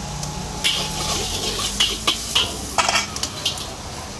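Steel spatula knocking and scraping against a steel wok while stir-frying char koay teow, giving several sharp, irregular clanks and a short scrape near the three-second mark. A steady low hum runs beneath.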